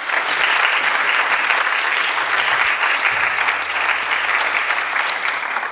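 Audience applauding, a steady mass of hand claps that fades away at the very end.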